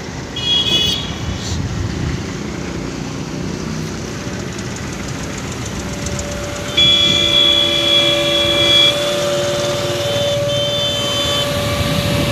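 Steady traffic noise with a short high horn-like toot just after the start. About halfway in, a set of steady high and low tones begins and holds for several seconds, louder than the traffic.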